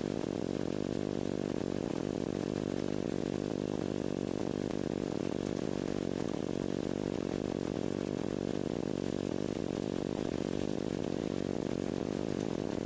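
Flex-wing microlight trike's engine and pusher propeller running steadily in cruise flight, a constant drone over a steady rush of air.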